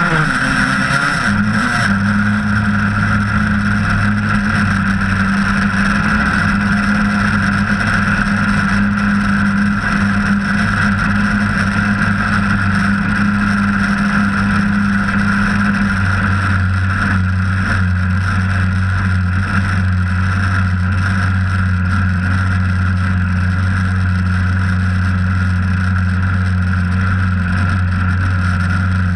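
Stock Zenoah 26PUM single-cylinder two-stroke petrol engine on an RC race boat, heard from on board: its revs fall off at the start, then it idles steadily as the boat creeps in.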